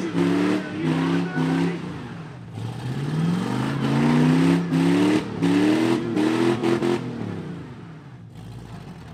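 Demolition derby pickup truck engine revving hard over and over, the pitch climbing on each rev then breaking off and starting again, as the wrecked truck tries to shove against another and move; the revving stops about seven seconds in, leaving a quieter running sound.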